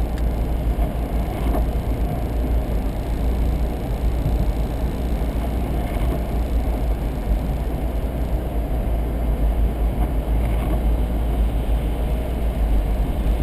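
Car cruising on a wet road, heard from inside the cabin: a steady low rumble of engine and tyre noise.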